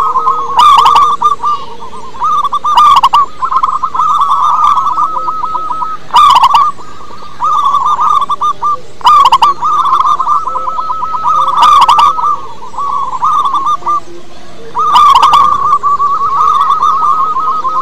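Zebra doves (perkutut) cooing: a near-continuous rapid, rattling trill. About six loud, harsh call notes break in every two to three seconds.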